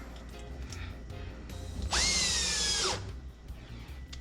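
Cordless drill/driver running for about a second near the middle, its motor whine sagging slightly in pitch as it drives in a 5/16 hex screw on the refrigerator's bottom panel.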